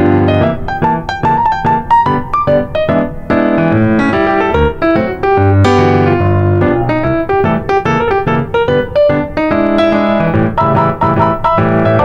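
Background piano music with many quick, repeated notes.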